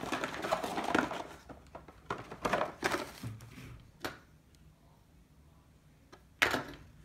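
Cardboard box and paper packaging rustling and scraping as they are handled, then a few knocks and clicks of a plastic battery charger being handled on a wooden table, with one last sharp click near the end.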